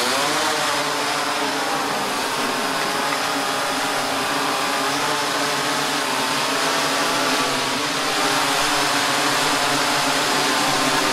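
Large multirotor camera drone's propellers spinning up with a rising whine, then a steady buzz whose pitch wavers as it lifts off and climbs; a little louder near the end.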